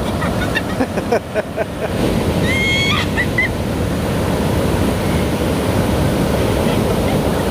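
Ocean surf breaking and washing on the beach as a steady rushing noise, with wind buffeting the microphone. A short high cry rises over it about two and a half seconds in.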